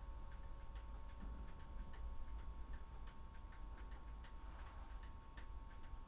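Faint, light clicks at an uneven pace of about two to three a second, over a steady low hum.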